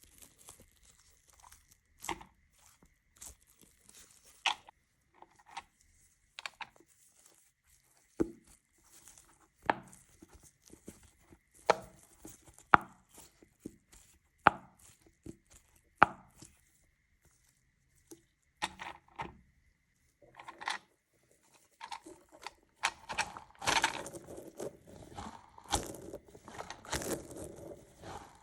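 Crisp snaps and crunching clicks at irregular intervals, about one every second or two, then a denser run of crackly crunching near the end, from objects being handled, squeezed or cut close to the microphone.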